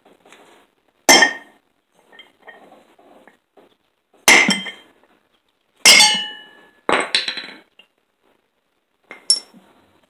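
About six irregular hammer blows driving the old bushing out of a riding mower's front wheel hub, each strike giving a short metallic ring.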